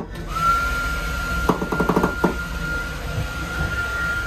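Train running with a low rumble and a steady high squeal that sets in shortly after the start and holds. A quick run of clicks comes around halfway.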